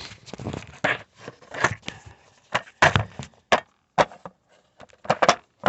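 Irregular knocks, clicks and short scrapes as a hand works blind behind a vehicle's dashboard to fit an antenna mounting screw. The loudest knocks come around the middle and just before the end.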